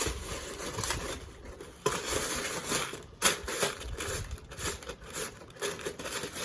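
Loose bird seed rustling and crunching as a peanut-butter-coated cardboard tube is rolled through it in a tray, with scattered small clicks and one sharper tap about three seconds in.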